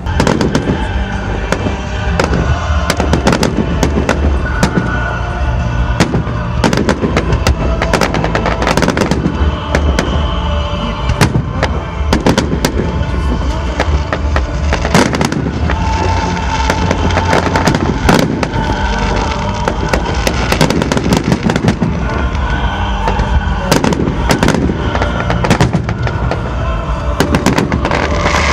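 Fireworks display: a dense, continuous barrage of bangs and crackling shells, with music playing underneath.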